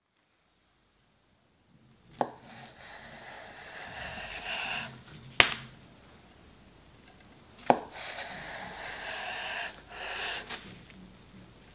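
Kitchen knife slicing lengthwise through the moist flesh of a beefsteak fungus (Fistulina hepatica) on a wooden cutting board. It starts about two seconds in: two long, drawn slicing strokes, with three sharp knocks of the blade against the board, the loudest about halfway through.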